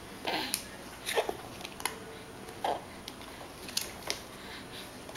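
A baby's brief mouth sounds and small grunts, with a few light clicks and taps of a plastic sippy cup as he mouths and handles it. The sounds come scattered, three short vocal bits and several sharp clicks.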